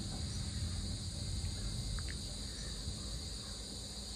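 Steady shrill drone of an insect chorus over a low thunder rumble that slowly fades away. A short chirp comes about two seconds in.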